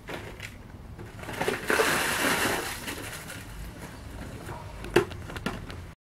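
Ice cubes and water rattling and crunching in a plastic tub as it is handled and lifted, loudest about two seconds in, with a sharp knock about five seconds in. All sound cuts off abruptly near the end.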